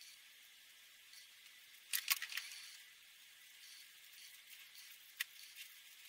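Felt-tip Promarker scratching and dabbing on paper: a faint, hissy scratching, with a quick cluster of louder taps about two seconds in and a single sharp tap near five seconds.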